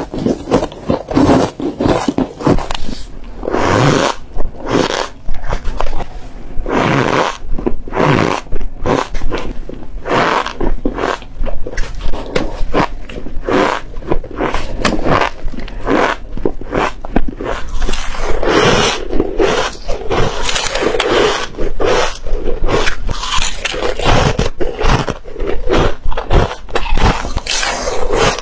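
Close-miked biting and chewing of freezer frost and crushed ice: rapid, irregular crunches, one after another.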